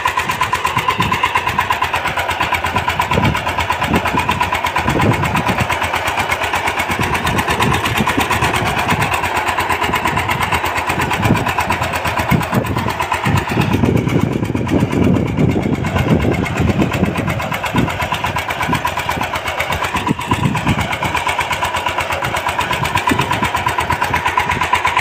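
VST Shakti power tiller's single-cylinder diesel engine running steadily under load while it pulls a seed planter through the soil.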